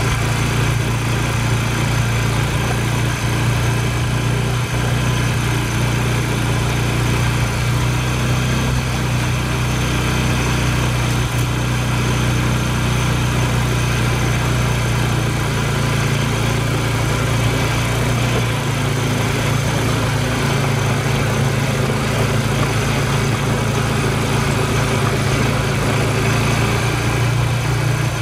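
ATV engine running steadily while riding along a dirt trail, heard from on board. The engine note shifts slightly about two-thirds of the way through.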